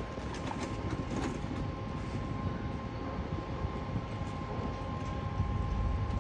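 Steady machine hum with a thin, constant high whine over a low rumble, and a few scattered light clicks and knocks.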